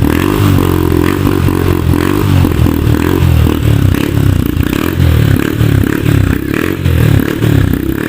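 Motorcycle exhaust through an aftermarket 'chicken pipe' muffler with no steel wool packing inside, loud, the throttle blipped over and over in quick repeated revs.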